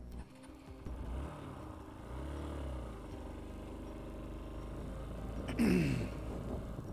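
Motor vehicle engine running steadily, with a vehicle passing close about two-thirds of the way in, its pitch falling steeply as it goes by.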